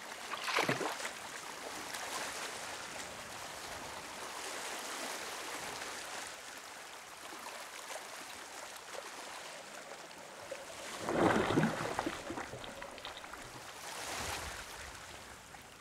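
Shallow seawater splashing and lapping, with a hooked sea trout thrashing at the surface at the start and a louder splash about eleven seconds in. A brief swish near the end as a fly line is cast.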